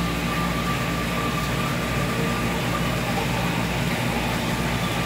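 Fresh water pouring steadily into a large aquarium as it is refilled during a water change, a constant rushing with a steady low hum underneath.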